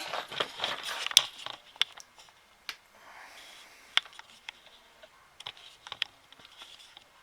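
Scattered small clicks and taps of hands and a spray can working around the amp chassis, with short hissing bursts of contact cleaner being sprayed into the potentiometers to clear their crackle, the densest in the first second and another about three seconds in.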